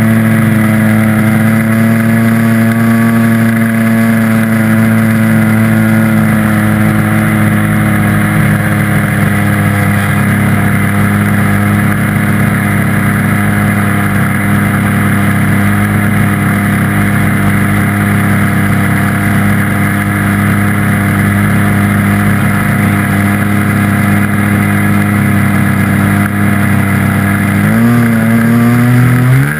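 RC airplane engine running close to the microphone, holding a steady high idle. Near the end it revs up in two rising steps as the throttle opens for the takeoff run.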